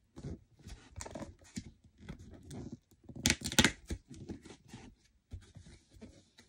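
Cardboard pull-to-start tear strip being ripped open on a toy box: a run of short rips and rustles, with the loudest, longest tear about three and a half seconds in.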